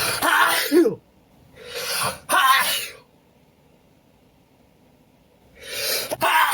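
A man's sneeze fits with hitching breaths, in three loud breathy bursts: one at the start, a two-part hitch and sneeze about two seconds in, and another near the end after a pause of a few seconds.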